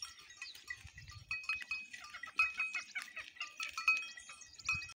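Livestock bells clanking irregularly, many short ringing clinks at a few fixed pitches, as a grazing herd moves about.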